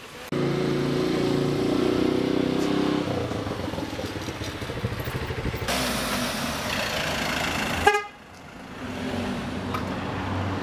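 A minibus engine running as the van moves off, with a steady horn-like tone held for about three seconds near the start. Near the end the sound cuts off abruptly, leaving a quieter steady street hum.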